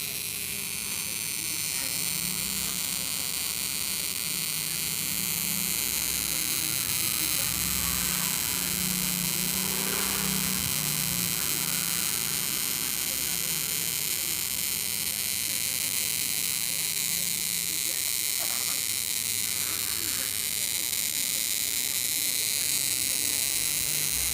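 A television giving off a steady electrical hum with a high, hissing whine over it. It is the abnormal noise the set is making.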